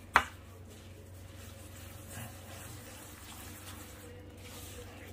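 Hands mixing damp semolina, coconut and batter in a wooden bowl, a faint soft rubbing and squishing, with one sharp click just after the start.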